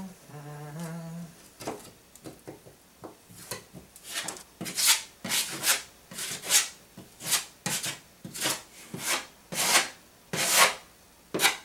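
Putty knife scraping joint compound across a drywall patch in repeated strokes, roughly one or two a second, getting louder from about three seconds in. Near the start a person hums briefly on two low notes.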